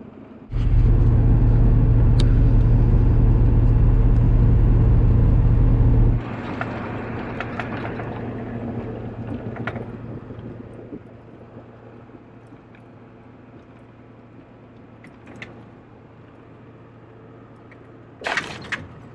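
Driving noise from a moving pickup truck: a loud low rumble that starts about half a second in and cuts off suddenly around six seconds, then a quieter steady road drone. A brief sharp noise comes near the end.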